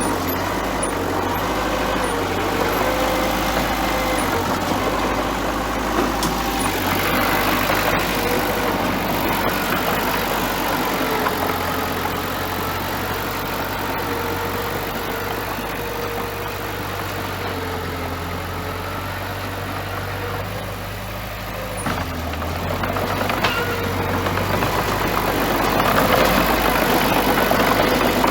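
Bulldozer's diesel engine running while working, its pitch rising and falling with engine speed and growing louder near the end.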